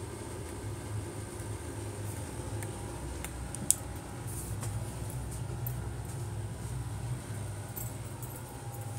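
Steady low hum with scattered small clicks and rustles, and one sharp click a little under four seconds in.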